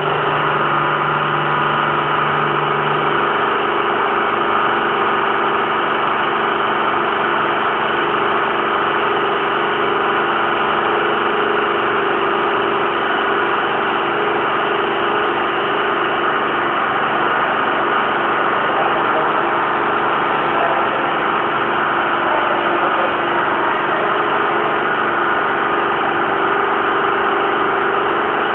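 Colliery winding engine running, a steady machine noise with constant tones that holds unchanged throughout.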